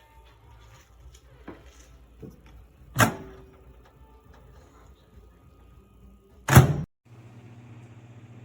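Toshiba countertop microwave oven being handled: small clicks and two sharp knocks, the second the loudest, then a steady electric hum as the oven starts running about seven seconds in.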